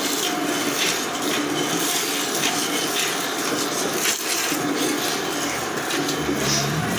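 Hand milking a cow: jets of milk squirting from the teat into a metal pail, a steady hiss.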